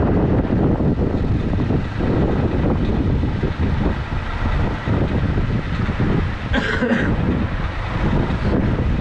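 Loud, steady low rumble of background noise, with a brief higher-pitched sound about seven seconds in.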